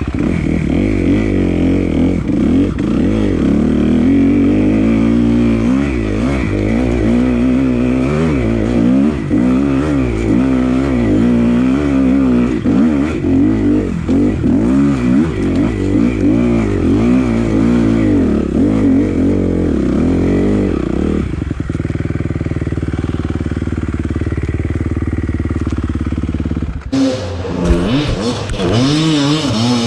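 Dirt-bike engine under hard riding, its revs rising and falling constantly as the throttle is worked over rough ground. After about 21 seconds it runs at a steadier pitch for several seconds, then there is a brief clatter about 27 seconds in before the revving picks up again.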